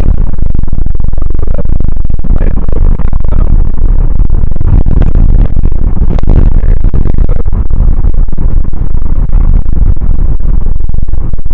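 Loud, steady wind and road rumble overloading the microphone in a moving car, drowning out other sound.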